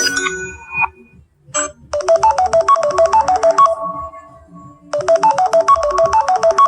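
Samsung Galaxy phone ringtones: one tune ends within the first second, then the next plays a quick run of bright synthesized notes, under two seconds long with a last note left ringing, and repeats it about three seconds later.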